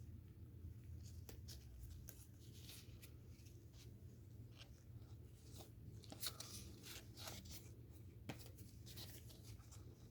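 Faint rustling and light clicks of trading cards being handled and slid through by hand, with a sharper tap about six seconds in and another about eight seconds in.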